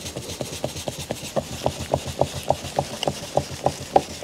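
A cloth wetted with headlight cleaner scrubbed back and forth over a cloudy, yellowed plastic headlight lens on a VW New Beetle. It makes a steady rubbing rhythm of about three or four strokes a second.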